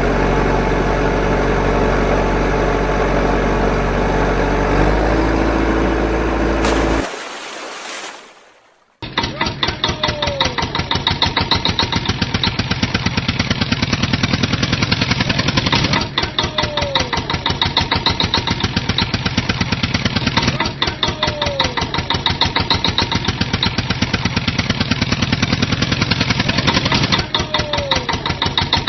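Music for the first seven seconds. After a short drop it gives way to an engine idling with rapid, even pulses. The engine recording repeats about every five seconds, like a looped sound effect.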